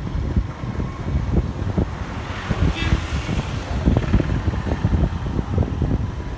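Wind buffeting the microphone of a camera on a moving motorcycle, in irregular gusts over a low steady rumble of the bike and road.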